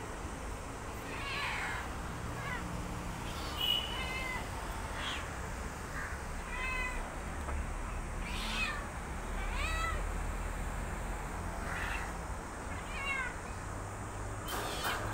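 Tabby kittens meowing over and over, short high calls coming about once a second, calling to the person who feeds them.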